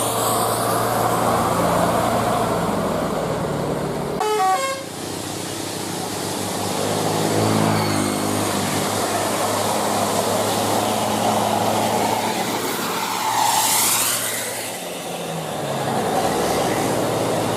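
Bus telolet basuri horn, a multi-trumpet musical air horn, playing short stepped melodies over the bus's running engine, with a quick falling run of notes about four seconds in.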